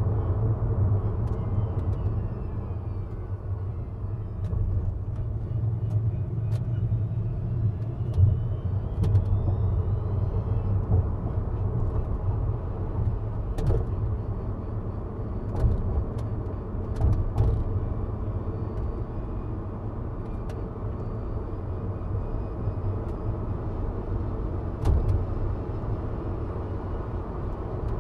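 Tesla Model 3 Performance driving at low speed: a steady low tyre and road rumble, with a faint high electric-motor whine that rises and falls with speed during the first ten seconds. Occasional sharp ticks sound over the rumble.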